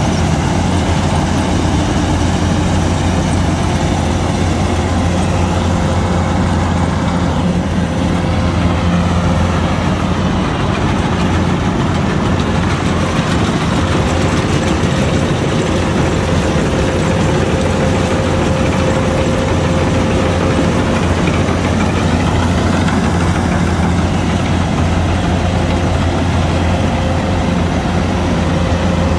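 Kubota DC-105X combine harvester running steadily while cutting and threshing rice: a deep, even engine hum with a thin steady whine from the machinery over it.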